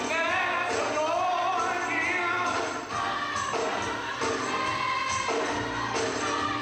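A choir singing gospel music, several voices together, with music behind them.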